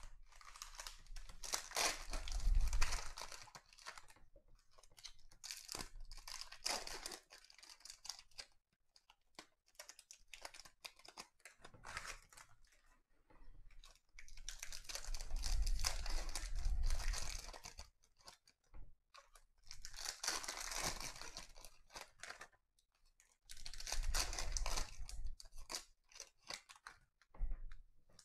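Trading-card pack wrappers being torn open and crinkled in several separate bursts, each lasting a second or a few seconds, with quiet handling between them.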